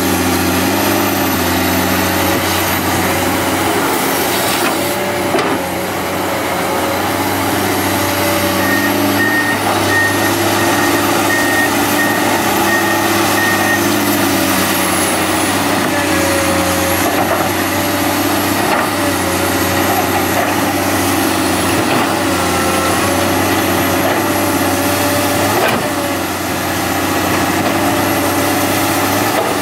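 Komatsu PC200 hydraulic excavator's diesel engine running steadily under working load. A regular beeping at about two beeps a second sounds for about five seconds near the middle, and there are a few short knocks.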